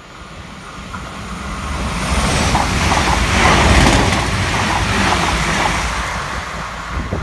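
Irish Rail ICR (22000 Class InterCity Railcar) diesel multiple unit running through the station. Its rumble and wheel-on-rail noise build over about three seconds, are loudest as it passes close by, then fade as it runs away.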